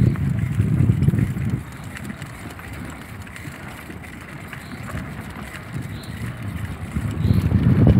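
Mountain bike rolling fast along a dirt singletrack: low rumble and rattle of tyres and frame over the ground. It drops quieter about a second and a half in and builds again near the end.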